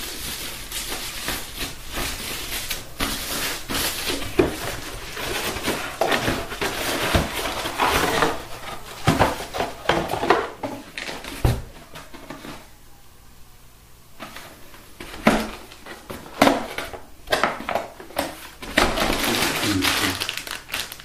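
Plastic packaging bags crinkling and rustling in irregular bursts as they are handled and a bagged cable is pulled out of a cardboard box, with a brief lull a little past halfway.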